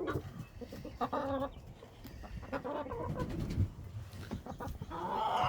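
Chickens clucking, in short scattered calls.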